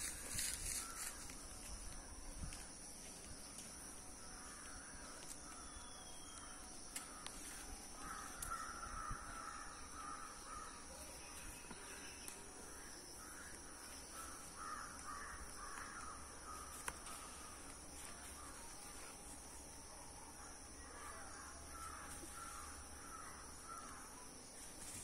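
Crows cawing in repeated faint bursts, over a steady high-pitched whine.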